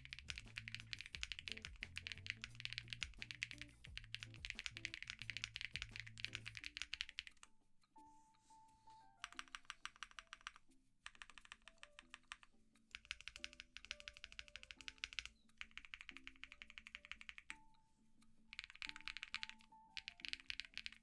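Typing on a mechanical keyboard with Zuoce Bubblegum linear switches: fast runs of keystrokes that stop briefly several times, over soft background music.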